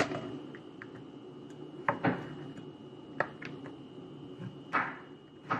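Chef's knife cutting king oyster mushrooms on a wooden cutting board: about six sharp knocks of the blade hitting the board at uneven intervals, over a steady background hum.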